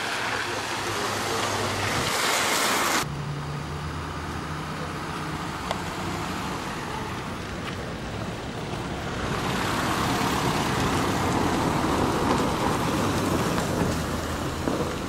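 Street traffic noise with vehicle engines: a loud rushing noise cuts off abruptly about three seconds in, leaving a steady low engine hum, and a louder passing vehicle swells up about nine seconds in and eases off near the end.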